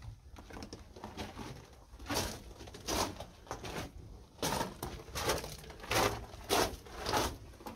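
Footsteps crunching on loose rock and gravel in a mine tunnel, irregular at first and then a steadier run of steps from about halfway through.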